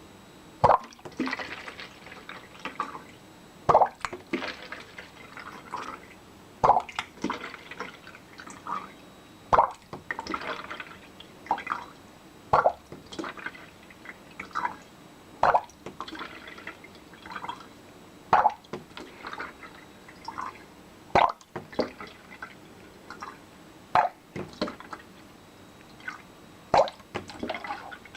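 Water glugging from one bottle into another through a tornado tube connector. A loud gulp comes about every three seconds, with smaller plops and drips in between. Each gulp is a 'burp': air has to bubble up before more water can drain down, because water and air cannot occupy the same space.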